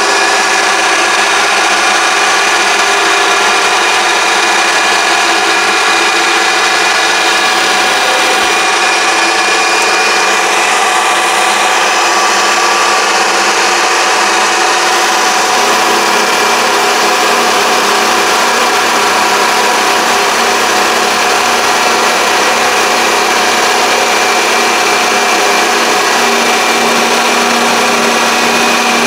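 Mini lathe running steadily, its motor giving a constant whine.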